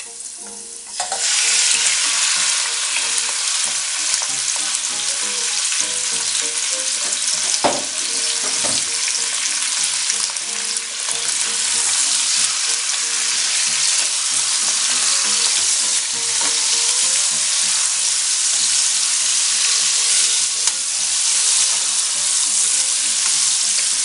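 Raw rabbit pieces sizzling in hot oil in a stainless steel pot: a loud frying sizzle starts about a second in as the meat goes into the oil and carries on steadily while a wooden spatula stirs it. Two knocks of the spatula against the pot about eight seconds in.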